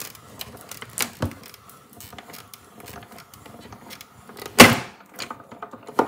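Hand-cranked die-cutting machine rolling a cutting-plate sandwich with a metal die and paper through its rollers: a low steady rolling with scattered clicks. A single sharp knock comes a little past halfway.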